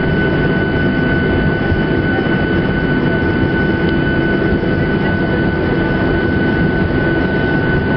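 Boeing 737-800's CFM56 turbofan engines running at low thrust while the airliner taxis, heard inside the cabin as a steady rushing noise with a steady high whine.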